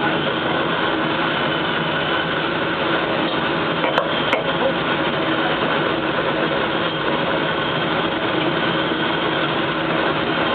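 Steady whirring of a laboratory fume hood's exhaust fan, with two faint clicks about four seconds in.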